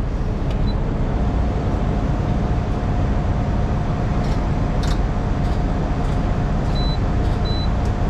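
Diesel truck engine running steadily, with a faint steady whine from about a second in and a series of short high beeps near the end.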